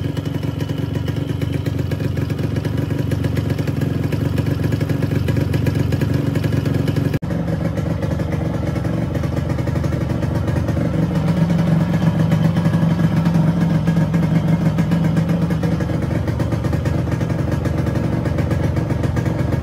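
Yamaha RX100's two-stroke single-cylinder engine running, fitted with a stand-in coil from an old-model Splendor; the owner says it runs but is down on power. The sound breaks off for a moment about seven seconds in, and the engine note is a little louder from about eleven to sixteen seconds.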